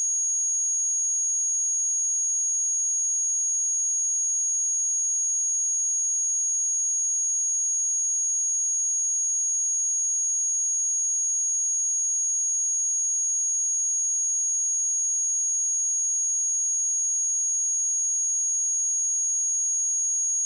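Steady 6628 Hz sine test tone: a single pure high-pitched tone held at constant pitch and level.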